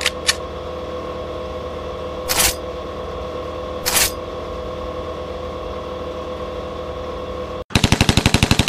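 Channel-intro sound design: a steady electronic drone with two quick clicks at the start and two whooshes about two and four seconds in. Near the end it gives way to a rapid, evenly spaced burst of shots like automatic gunfire.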